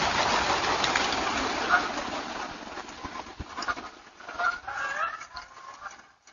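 Geese honking a few times over a rushing noise that is loudest at first and fades.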